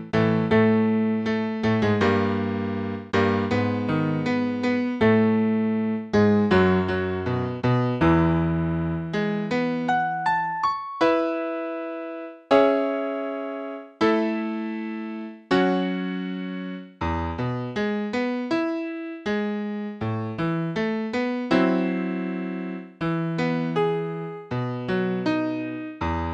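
Keyboard in a piano voice playing a slow song in struck chords over a low bass line, each note dying away after it is struck. Midway the texture thins to a few single held notes before the full chords return.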